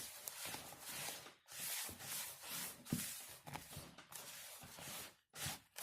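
Hands mixing damp coarse semolina in a bowl, the fingertips rubbing the grains in a circular motion: a faint gritty rubbing that pauses briefly twice.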